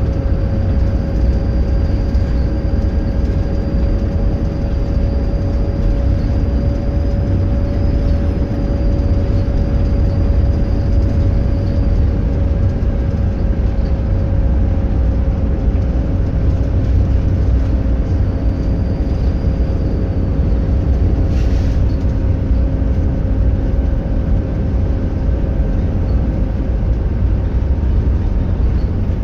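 Diesel bus engine running steadily with a heavy low rumble and a thin, high turbocharger whistle over it. The whistle fades out about twelve seconds in, returns briefly later, and a single short knock sounds near the end.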